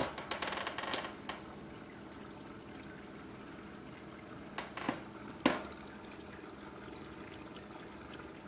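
Petmate Infinity Elite powered water bowl running: steady trickling water over a faint pump hum, with a cat lapping at the bowl in the first second and a few sharp clicks around five seconds in.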